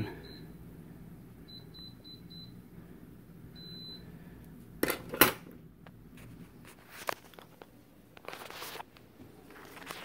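Friedrich Kuhl window air conditioner beeping as it takes commands from its remote while the settings are changed: a single beep, four quick beeps about a second and a half in, then a longer beep near four seconds. Two sharp clicks follow about five seconds in, over a low steady hum.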